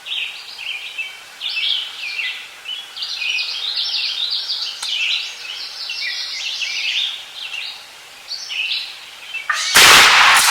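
Songbirds chirping and singing all around, then a single loud shotgun blast near the end, its report trailing off.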